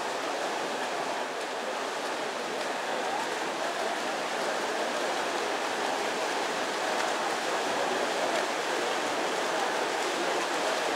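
Steady splashing and churning water from several swimmers racing freestyle in an indoor pool.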